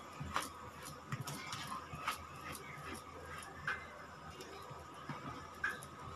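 Faint, scattered light clicks and taps as chopped colocasia leaves are tipped from a plastic tray into a steel pot and pressed down by hand.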